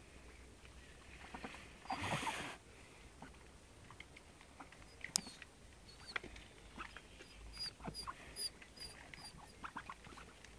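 Faint sounds of white domestic ducks and a Jack Russell feeding at close quarters on grass: scattered small clicks and pecks. There is a brief louder rustle about two seconds in, and a run of short high peeps in the second half.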